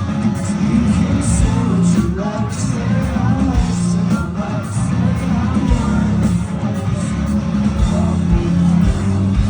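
Rock music with guitar, drums and singing, with a steady beat.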